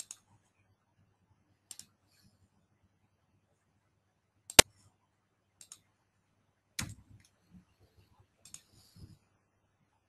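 Computer mouse clicks, scattered and separate, some as quick doubles, with one sharper click about four and a half seconds in.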